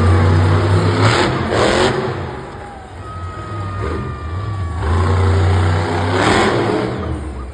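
Monster truck engine running loud, revving in surges about a second in and again near the end.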